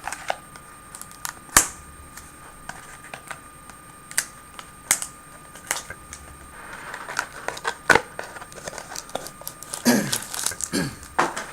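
Handling and opening a cardboard trading card box: scattered sharp clicks and taps with bits of rustling.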